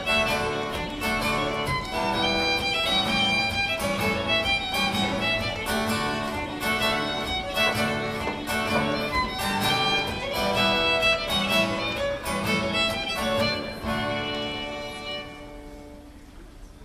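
Fiddle playing a traditional jig, a quick run of notes over guitar accompaniment, winding down near the end to a last note that fades away.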